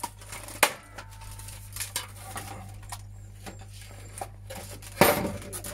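Plastic casing of a CD cassette player being handled and pulled apart: scattered light clicks and rattles, a sharp knock about half a second in, and a louder knock near the end.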